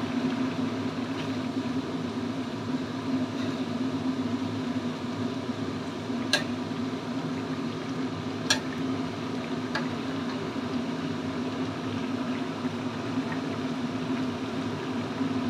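Chicken broth with chicken feet boiling in a steel wok, over a steady low hum. A metal ladle clinks sharply against the wok a few times midway.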